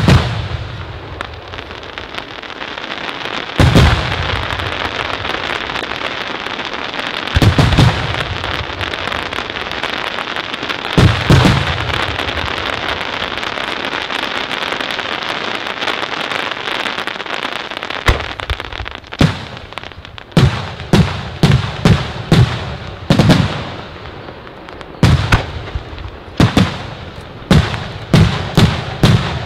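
Aerial firework shells bursting, with a steady crackling hiss of glittering stars between the booms. Big booms come about four, seven and eleven seconds in, and from about eighteen seconds on a quick run of sharp bangs follows, roughly two a second.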